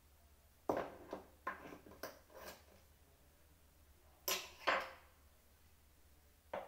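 Hard knocks and clatter of metal chair parts being handled during an office chair repair. There are several knocks in the first couple of seconds, then two louder ones a little past four seconds.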